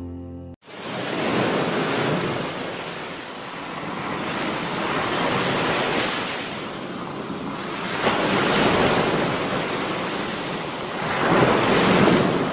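Sea waves breaking and washing in: a rushing noise that swells and fades every few seconds, starting when the music cuts off about half a second in.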